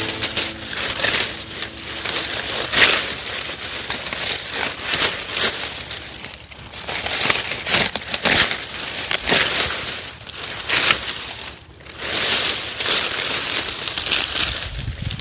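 Dry peony stalks and leaves crackling and rustling as they are pulled and gathered by hand, in an irregular run of crunches with a short lull about two thirds of the way through.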